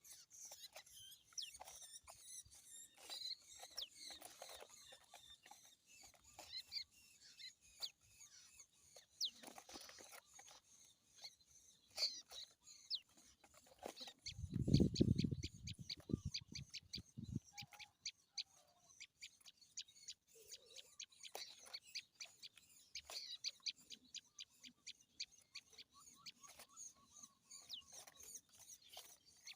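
Small birds chirping, many short high calls and ticks scattered through. About halfway through there is a louder low rumble lasting a couple of seconds.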